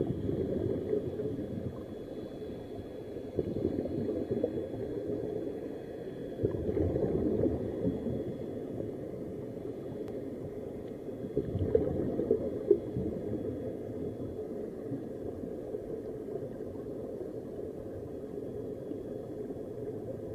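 Muffled underwater recording of air bubbling and gurgling from surface-fed sea walk helmets, swelling louder for a few seconds about a third of the way in and again around the middle. A faint steady high whine sits under the bubbling.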